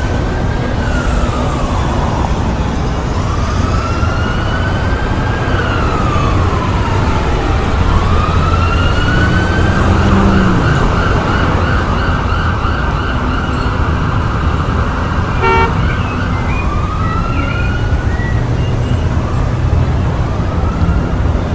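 Emergency vehicle siren wailing up and down in slow sweeps every few seconds, switching to a fast warbling yelp for a few seconds around the middle, over a dense traffic rumble. A short honk sounds about two-thirds of the way in.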